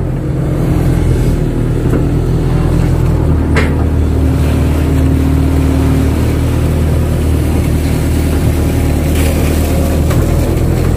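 Kato crawler excavator's diesel engine running steadily as the machine works, with one sharp knock about three and a half seconds in.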